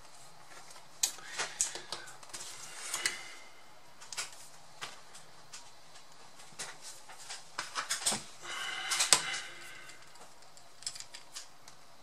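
Irregular clicks, taps and scrapes from handling a partly dismantled laptop, its casing and parts knocking and rubbing on the work mat and against a plastic pry tool. The loudest part is a cluster of scraping and rustling about nine seconds in.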